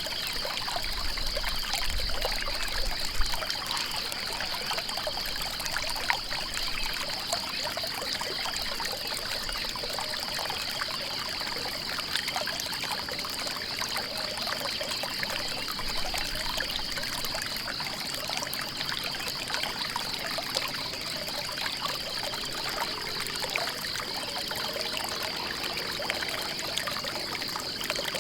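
Stream water running and trickling steadily, with a continuous high, rapidly pulsing buzz over it.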